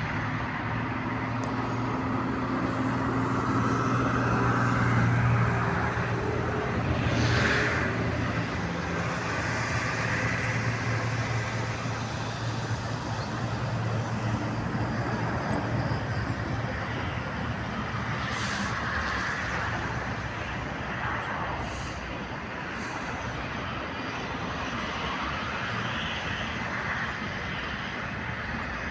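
Steady road traffic noise with a low engine hum, loudest in the first several seconds.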